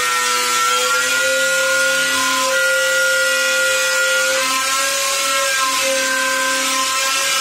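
Handheld electric router running under load as it trims the edge of a Corian solid-surface countertop: a steady motor whine over the hiss of the bit cutting, its pitch wavering slightly as the cut goes on.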